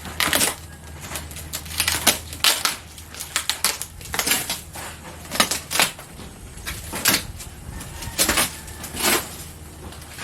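Cardboard box and packing material being handled during an unboxing: irregular rustles, scrapes and knocks, about a dozen sharp bursts.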